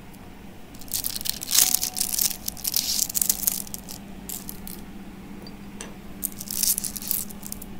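Thin hologram hot-stamping foil crinkling and tearing as it is peeled and pulled away from metal jigs by hand. The rustling comes in two spells, about a second in and again near the end, over a low steady hum.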